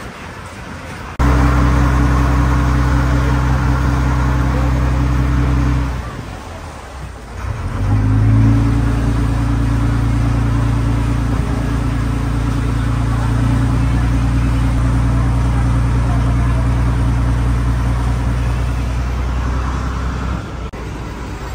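Passenger ferry's engine running steadily under way, a low drone heard on deck. It starts abruptly about a second in, drops out briefly around six seconds, then runs on until near the end.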